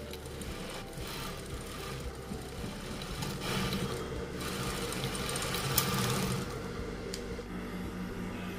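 Sewing machine stitching the underarm side seam of a cotton sleeve. It runs steadily, louder for about three seconds in the middle with one sharp click, then drops back to a quieter hum near the end.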